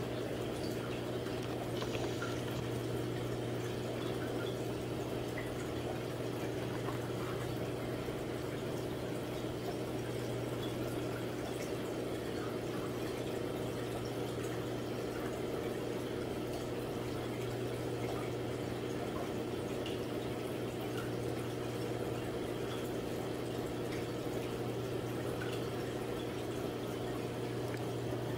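Reef aquarium water circulating with its pump running: a steady low hum under constant trickling and bubbling water.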